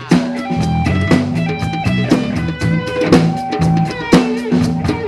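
A live band playing an instrumental stretch between rap lines: drum kit with snare and bass drum hits over bass guitar and guitar.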